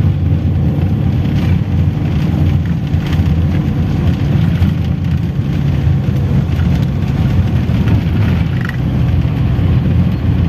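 Toyota Hiace van's engine running steadily while the van drives along, heard from inside the cabin as a continuous low hum mixed with tyre and road noise.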